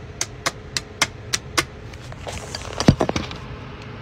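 Long press-on nails tapped rapidly against a wall, sharp clicks about three or four a second that stop about a second and a half in, then a louder thump with a few small knocks near three seconds in. The tapping is a test that the freshly glued nails hold.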